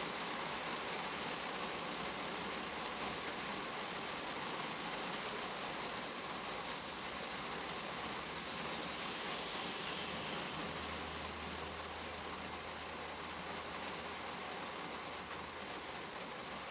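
Rain falling on a car's windshield, heard from inside the cabin as a steady hiss of drops. A low hum comes in about ten seconds in.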